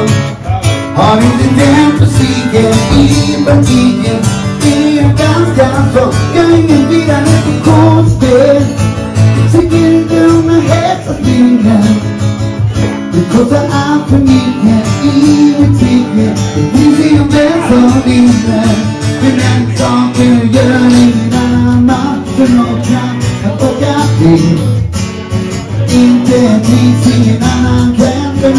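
Live acoustic guitar strummed steadily while men sing a melody into microphones.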